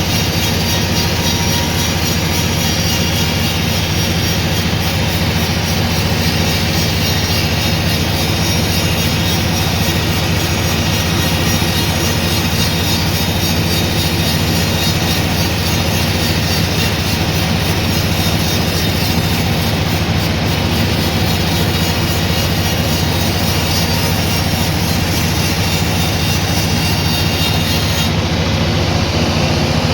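Sawmill machinery running steadily: a constant low motor drone with a hiss above it.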